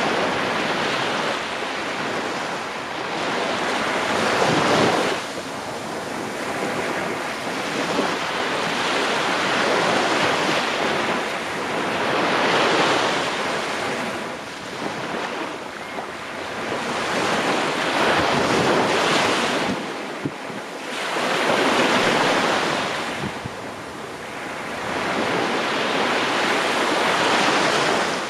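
Small waves breaking and washing up a sandy beach, the surf swelling and fading every few seconds. Wind buffets the microphone.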